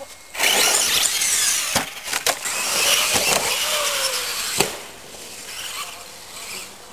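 Electric radio-controlled monster truck running hard, its motor whining high and shifting in pitch as it accelerates on dirt, with a few sharp knocks from the truck hitting the ground or bumps. It starts suddenly about half a second in and eases off after about five seconds.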